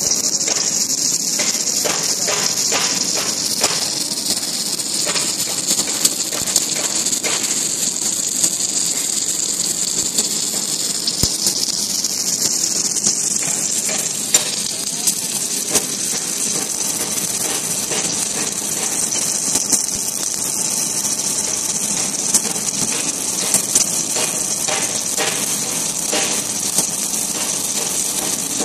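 Automatic arc welding head on a column-and-boom manipulator welding a steel plate: a steady high hiss with scattered sharp crackles and pops.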